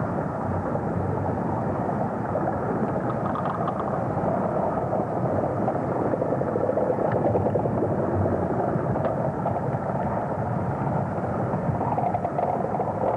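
Underwater recording of lava erupting into seawater: a steady rushing rumble with a few faint crackles.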